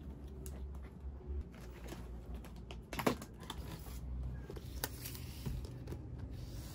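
Books being handled: light knocks and taps as a spiral-bound textbook is picked up and slid onto a bookshelf among other books. The loudest knock comes about three seconds in, and another comes near five seconds.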